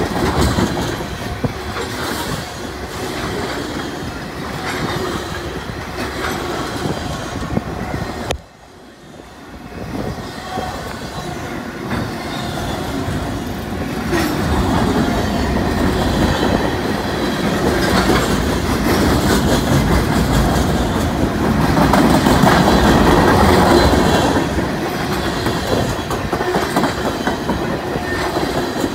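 Freight train of tank cars, autoracks and covered hoppers rolling past close by, the wheels clattering over the rails with some wheel squeal. The sound drops sharply about eight seconds in, then builds back within a couple of seconds.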